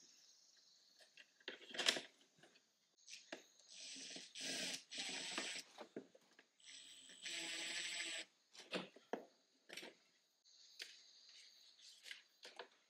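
Cordless impact driver running in short spells, the longest about seven seconds in, as screws are driven into a plastic front grille. Between spells there are clicks and rustling from handling the parts.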